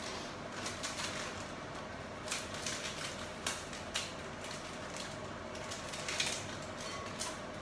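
Irregular light clicks and taps of hands handling food and dishes at a kitchen counter while pieces of cake are laid into a glass bowl, over a steady low hum.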